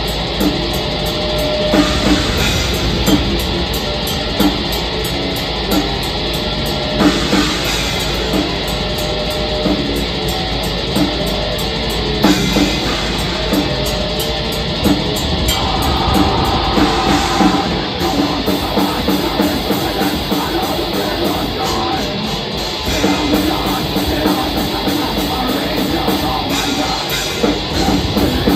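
Black metal band playing live: electric guitars over a drum kit, the drumming fast and dense throughout.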